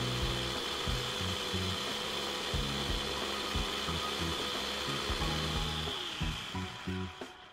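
Electric mini food chopper's motor running steadily with a high whine as it grinds coconut sambol into a paste. The motor winds down and stops near the end.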